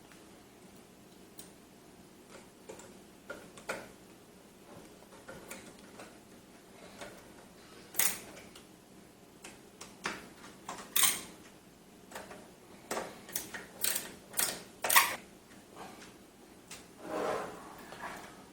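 Screws being driven by hand to mount a power supply in a metal PC case: irregular small clicks and metallic ticks, faint and sparse at first, then louder and more frequent in the second half.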